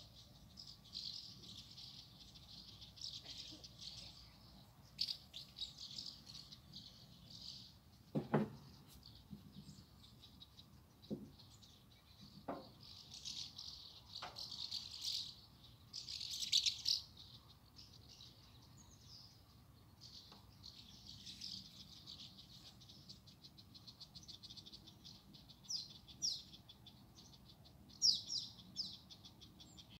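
Many small birds chattering and twittering together, a dense run of high overlapping calls that swells louder now and then.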